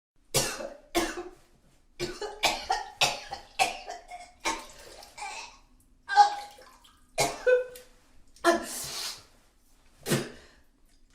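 A woman retching and vomiting: a series of short, sudden heaving gags and coughing retches, some with a wet, gurgling, splashing quality, separated by brief pauses.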